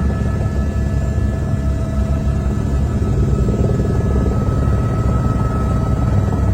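Helicopter in flight: a steady, loud low drone from the rotor and engine, with a faint steady whine above it.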